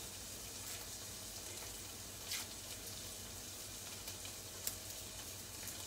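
Thinly sliced onions frying gently in olive oil in a pan, a soft steady sizzle, with a couple of faint clicks from hands peeling garlic.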